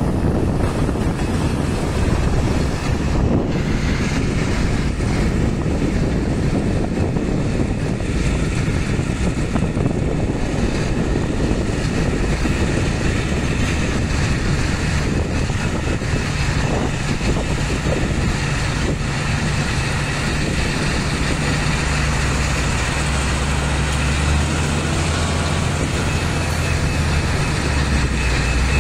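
Heavy diesel engines of a Liugong wheel loader and a Mitsubishi Fuso dump truck running, a dense, steady rumble. About halfway through, a steady low engine drone comes to the fore.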